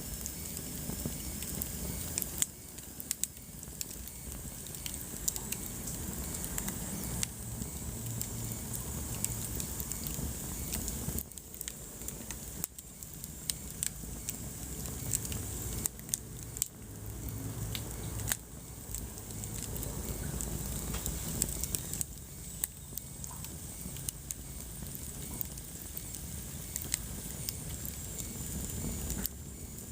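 Wood fire crackling in a fireplace, with sharp pops scattered irregularly over a steady low rush of burning.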